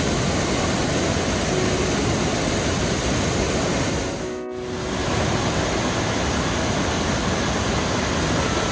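Steady rushing noise of a large waterfall, Mesa Falls on the Henry's Fork, with soft background music faintly underneath. The water sound dips briefly about four and a half seconds in.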